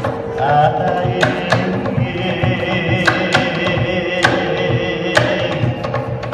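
Hawaiian chant sung to hula, over sharp hand-drum strikes that often fall in quick pairs.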